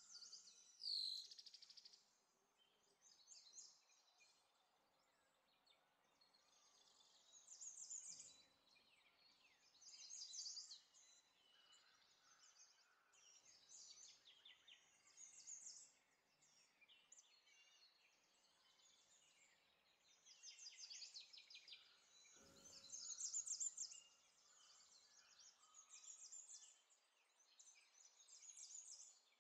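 Faint birdsong: short chirps and rapid trills in repeated phrases every couple of seconds, with one sharp knock about two thirds of the way through.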